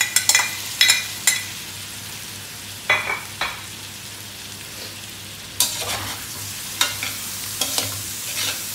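Food frying in a hot metal wok with a steady sizzle as sliced mushrooms go in among frying pork, garlic and onion. Sharp knocks and scrapes against the pan, a few in the first second and more often from about halfway through, as the mix is stirred with a metal spatula.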